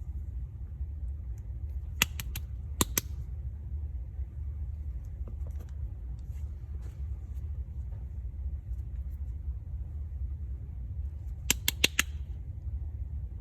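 Quick clusters of sharp taps or clicks on soap packaging: three and then two about two to three seconds in, and four more near the end. A steady low rumble runs underneath.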